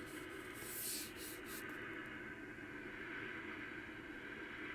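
Faint steady background hiss, with a short cluster of sharp hissy rustles about a second in.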